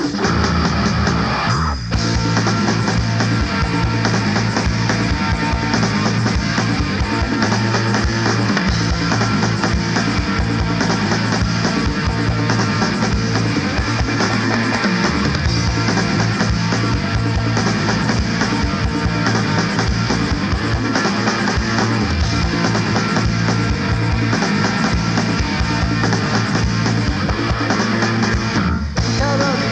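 A 1990s Japanese visual kei rock band recording, with electric guitar, bass and drum kit playing a loud, dense passage. The music breaks off briefly about two seconds in and again near the end.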